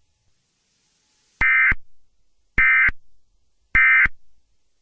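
Emergency Alert System end-of-message data tones: three short, identical buzzy digital bursts about a second apart, the signal that closes an alert broadcast.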